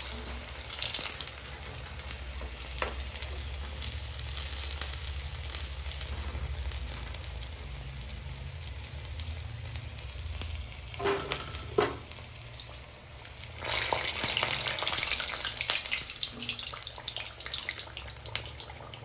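Hot oil sizzling steadily as food deep-fries in a steel kadai, with a couple of brief knocks a little past the middle and a louder surge of sizzling a few seconds later.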